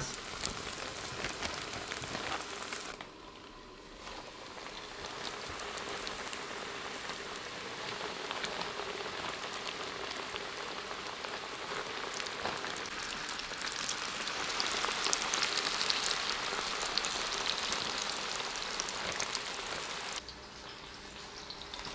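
Battered fish strips deep-frying in hot peanut oil: a steady crackling sizzle, briefly quieter about three seconds in and again near the end.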